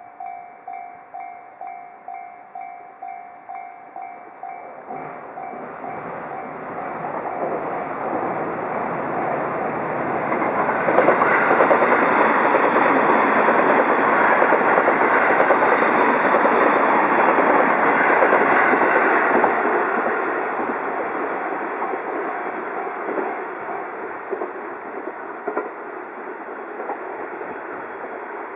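Japanese railroad crossing's electronic warning bell ringing at about two strokes a second, then a JR Uchibo Line train passing through the crossing. The train grows louder, is loudest in the middle, and fades toward the end, with the bell going on faintly beneath it.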